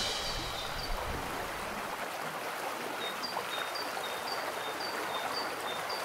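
Outdoor ambience: a steady, even rushing hiss, with a small bird giving short high chirps about twice a second from about halfway through.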